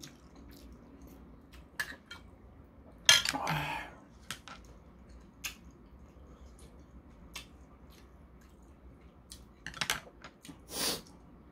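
Quiet table sounds of eating: scattered light clicks of a metal spoon and chopsticks against ceramic bowls. There is a louder short breathy noise about three seconds in and two more near the end.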